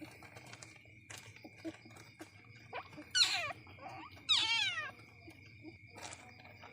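Young Asian palm civet (musang) giving two shrill, mewing calls that each slide steeply down in pitch, about three and four seconds in. A faint steady high tone and scattered soft clicks are under them.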